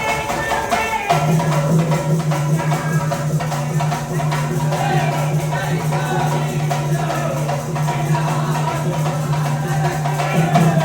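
Music with drums and rattling hand percussion over a steady low drone.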